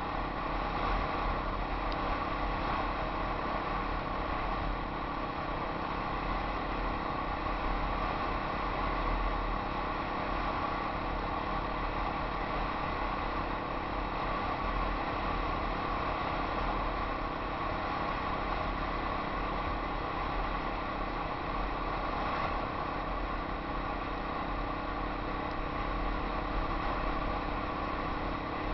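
Yamaha XT 250 single-cylinder four-stroke trail bike engine running steadily at riding speed, heard from a helmet camera with a low wind rumble over the microphone.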